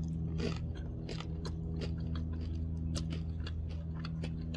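Crisp crackling clicks of a deep-fried Jack in the Box taco being bitten and chewed, irregular and close to the microphone, over a steady low electrical hum.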